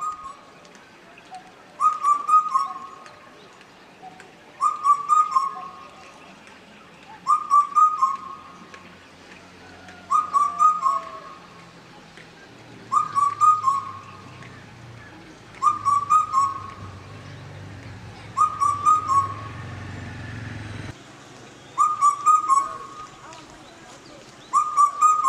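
A bird-like whistled call, repeated at even intervals about every three seconds. A faint low hum runs behind it and cuts off suddenly about 21 seconds in.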